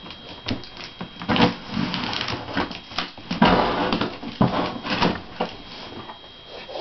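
Cardboard shipping box being cut open with a knife and handled: irregular scraping and rustling of blade, tape and cardboard, with a longer scrape a little past the middle.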